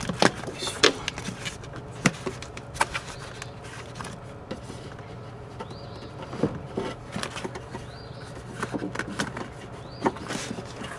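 Irregular light clicks, taps and knocks of a hand rummaging inside a stripped car door, fishing the side mirror's wiring through the door cavity.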